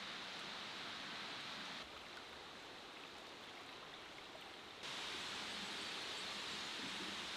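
Steady outdoor ambience, a faint even hiss. It drops in level about two seconds in and rises again, a little louder, about five seconds in.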